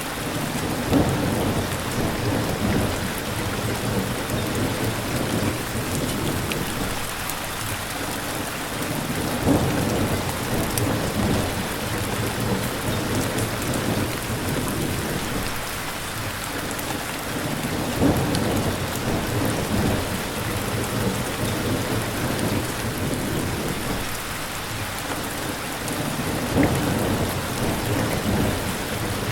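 Steady rain with low rolling rumbles of thunder that swell about every eight to nine seconds, each starting with a sharper crack.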